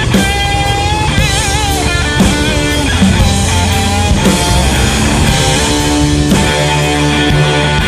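Rock music with a lead electric guitar playing wavering, vibrato notes over a steady backing.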